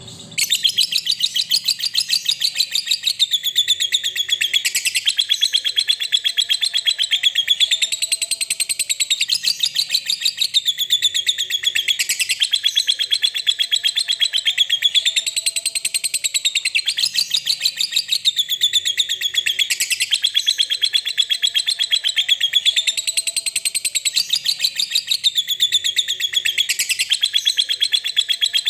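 A lovebird's 'ngekek': a long, unbroken, very rapid high-pitched chattering trill that starts abruptly and swells and dips in waves every few seconds. This is the prolonged ngekek song that lovebird keepers play as a lure to set other lovebirds singing.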